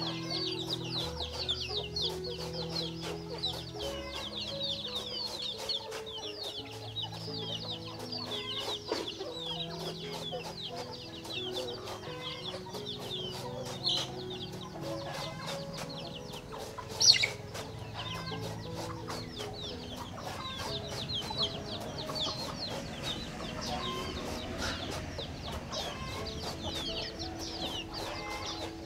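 Chickens peeping constantly, a dense stream of quick high-pitched cheeps with scattered light clicks, over background music of low held notes. One louder call stands out about 17 seconds in.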